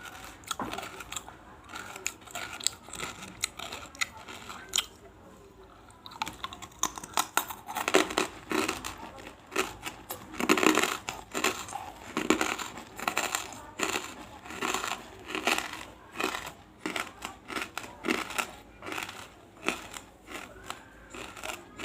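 Close-up crunching and crackling of large pieces of banslochan (tabasheer) being chewed and crushed in the mouth, a rapid irregular run of sharp crunches. They are sparse at first and come thicker and louder from about seven seconds in.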